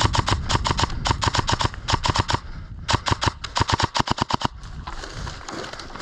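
Airsoft gun firing two long full-auto bursts of about ten shots a second, with a short break just before the three-second mark; the firing stops about a second and a half later.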